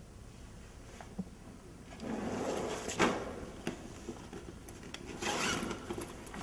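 Handling noises: two spells of rubbing and scraping, the first about two seconds in and the second near the end, with a sharp knock about three seconds in and a few small clicks.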